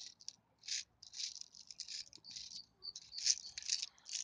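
Plastic airsoft BBs rattling as they are shaken out of a small plastic container into a pistol magazine, in a quick run of short, irregular rattles.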